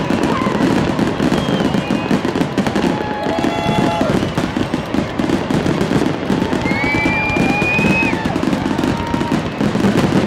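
Fireworks grand finale: a rapid, continuous barrage of bursts and crackles. Several whistling tones rise and glide over it, the longest about six to eight seconds in.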